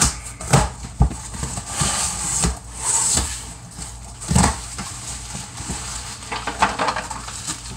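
Cardboard shipping box being opened by hand: flaps scraping and rustling, with a couple of sharp knocks near the start and a heavier thump about four and a half seconds in.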